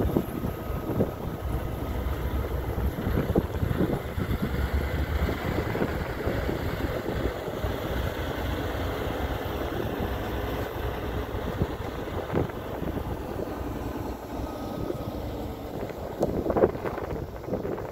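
Wind rumbling on the microphone outdoors, with a few short crunches or knocks, the loudest near the end.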